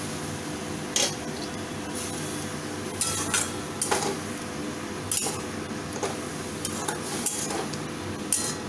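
Steel spatula stirring a wet vegetable curry in a metal kadai, scraping and clinking against the pan at irregular moments about once a second.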